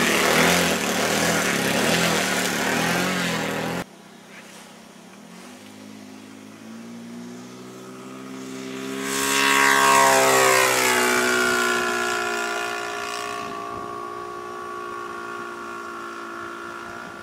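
A propeller airplane's engine runs loud and close, then cuts off abruptly about four seconds in. After that the airplane is heard flying past: the engine grows louder, is loudest around the middle, then drops in pitch as it moves away.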